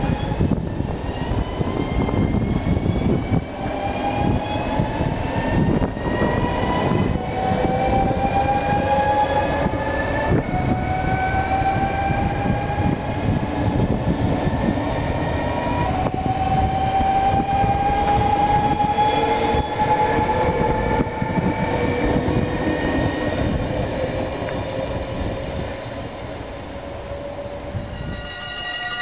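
NS VIRM double-deck electric train pulling away, its traction motors giving a whine that climbs in pitch, drops back and climbs again in a series of steps as it gathers speed, over the rumble of the wheels on the rails.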